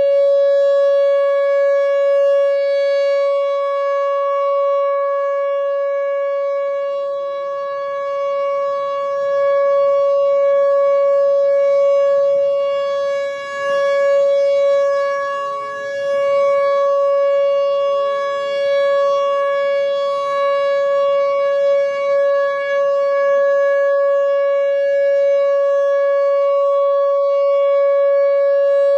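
Whelen WPS-4004 electronic outdoor warning siren sounding a steady, unwavering tone for a scheduled test, rich in overtones, its loudness dipping briefly a couple of times near the middle.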